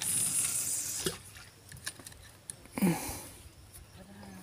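Fishing tackle handled in a wooden boat as a rod is readied to cast: a soft hiss for about the first second, then scattered light clicks and knocks, with two brief low pitched sounds about a second and nearly three seconds in.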